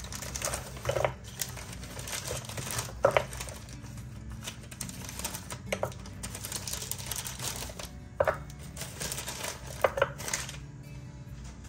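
Plastic bag crinkling as small glitter containers are taken out of it, with scattered light clicks and taps as the containers knock together and are set down. Faint background music underneath.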